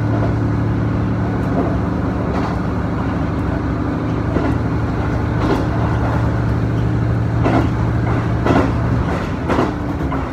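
Diesel railcar running along the line, heard from inside the passenger cabin: a steady engine hum, with a wheel knock over rail joints roughly once a second. About nine seconds in, the engine's hum drops away and its pitch falls as power comes off.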